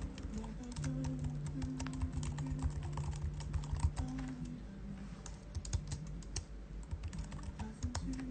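Typing on a computer keyboard: quick, irregular key clicks, over quiet background music with held low notes.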